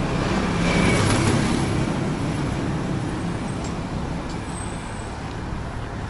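Road traffic: a vehicle's engine and tyres pass close by, loudest about a second in, then the noise slowly fades under a steady low engine hum.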